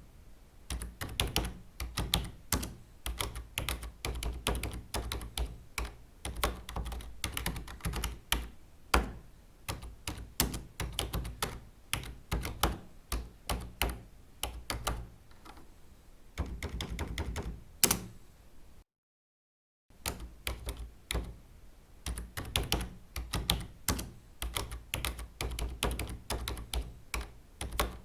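Typing on a computer keyboard: fast, irregular key clicks with thuds of keys bottoming out. The typing breaks off for about a second of silence roughly two-thirds of the way through, then resumes.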